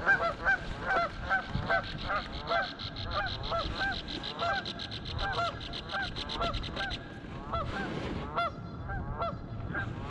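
Canada geese honking: a long run of repeated calls, several a second and overlapping. A rapid, even ticking runs under the calls and stops about seven seconds in.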